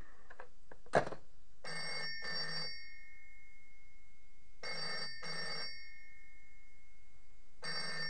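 Telecom Australia 802 rotary phone's bell ringing in the Australian double-ring pattern: two short rings and a pause, three times, about three seconds apart. A sharp click about a second in as the handset is set down on the cradle.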